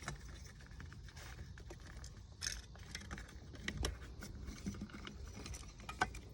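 Small metal parts of a boat throttle remote control clicking and clinking as they are handled, with a few sharper clicks at about two and a half, four and six seconds in.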